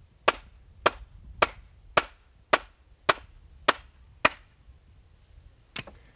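Wooden mallet striking the back of a frow, driving its blade into the end of a sweet chestnut pole to start a split: eight sharp, evenly spaced knocks, nearly two a second, then two lighter taps near the end.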